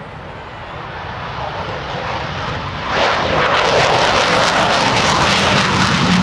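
F-14D Tomcat's twin General Electric F110-GE-400 turbofans in full afterburner, a jet roar building as the fighter approaches. About three seconds in it turns suddenly much louder, with a dense crackle and a deepening rumble.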